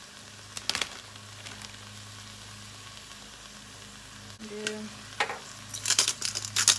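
Spices being shaken from containers over a pot of chicken: a couple of clicks, then a quick run of shakes and taps near the end, over a steady low hum.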